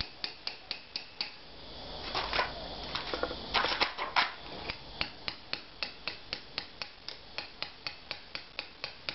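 A hammer tapping a small cold chisel to chip soft lime mortar out of a brick joint. The taps are light and irregular at first, with a couple of louder scraping flurries as the mortar breaks away, then settle into a steady rhythm of about four taps a second.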